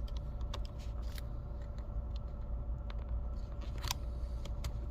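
Faint small clicks and handling noises as a hand fits a replacement MacBook Air battery's connector, over a steady low hum, with a sharper click about four seconds in.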